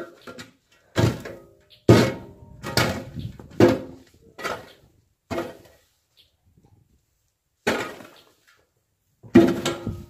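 Aluminum scoop shovel scraping and knocking in a wooden feed bunk, with about eight sharp strokes roughly a second apart and a short pause after the sixth. Each stroke has a brief metallic ring.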